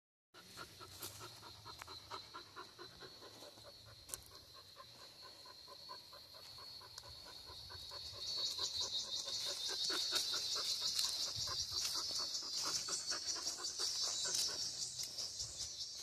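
A dog panting rapidly and steadily close by, over a steady high buzz that grows louder about halfway through.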